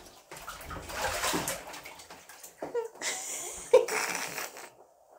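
Bath water splashing and sloshing as a toddler crawls and paddles through a shallow tub. It stops abruptly near the end.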